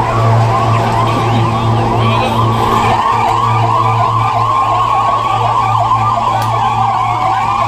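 Several sirens wailing at once, their rising-and-falling tones overlapping. One holds a longer tone that climbs slowly near the end, over a steady low hum.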